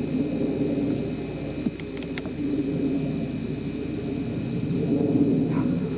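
Crickets chirping steadily over a low, steady rumble that swells slightly now and then.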